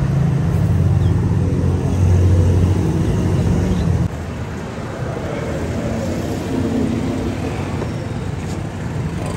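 A steady low engine hum that cuts off suddenly about four seconds in, leaving a busy street background.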